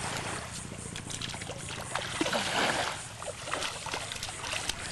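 Water splashing and sloshing at the water's edge as a small child scoops with a plastic bucket, loudest about two to three seconds in.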